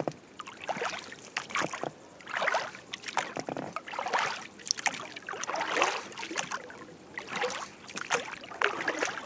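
Oars of an inflatable rowing boat stroking through calm lake water, with a splashy swish about once a second, while the boat tows a fishing net.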